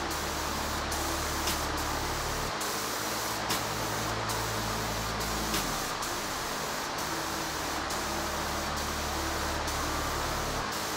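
Compressed-air spray gun spraying primer: a steady hiss of air and paint mist that briefly lets up about once a second.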